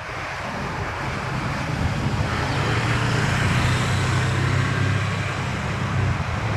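Massey Ferguson backhoe loader's diesel engine running with a steady low hum. It grows louder over the first three seconds and eases slightly near the end.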